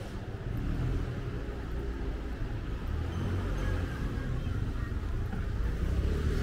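A motor vehicle's engine running close by, low and steady, getting louder as it approaches.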